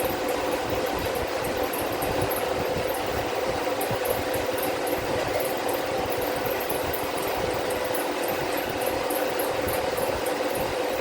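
A machine running steadily with a constant hum and even mechanical noise, unchanging throughout.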